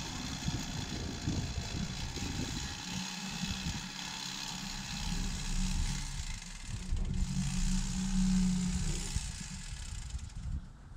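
An engine running steadily at a constant low pitch, under a broad hiss; the hiss falls away near the end.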